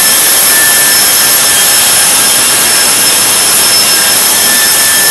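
UV curing machine running, its lamp housings' cooling fans giving a steady, loud rushing hiss with a few faint, high, steady whines over it.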